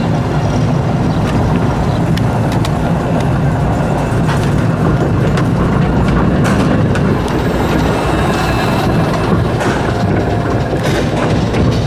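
Vekoma mine-train roller coaster climbing its chain lift hill, a steady low rumble with scattered sharp clicks from the lift. Around the middle the train crests the top and rolls onto the curving track.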